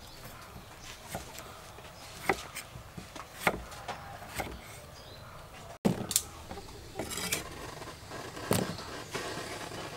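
A kitchen knife slicing tomatoes on a wooden chopping board, a sharp tap each time the blade meets the wood, at an uneven pace. About halfway through, the knocks change to more scattered clatter and rustling.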